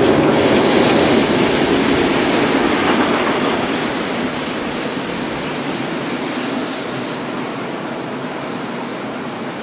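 Passenger train rolling across a steel truss railway bridge, a steady rumble of wheels on the bridge that gradually fades as the train draws away.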